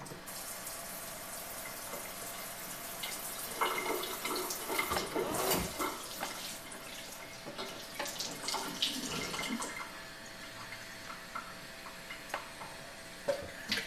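Water from the final rinse pouring and splashing out of a shofar into a stainless steel kitchen sink. The splashing is heaviest about four to six seconds in, and a few knocks of the horn against the sink come later.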